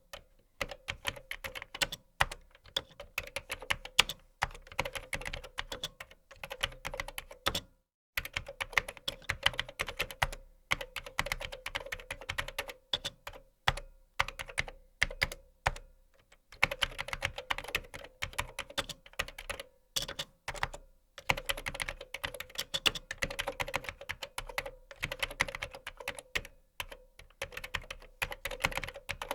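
Fast typing on a computer keyboard: rapid key clicks in runs of a few seconds, with brief pauses between runs.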